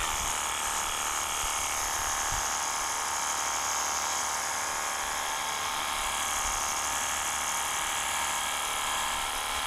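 Ingco 20V cordless pressure washer running steadily, its battery-powered pump motor whining under the hiss of the spray, as it sprays soapy foam through a bottle attachment.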